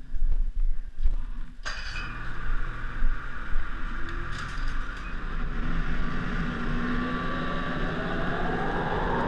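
Ski-Doo snowmobile engine running, its pitch rising steadily over the last few seconds as it accelerates away.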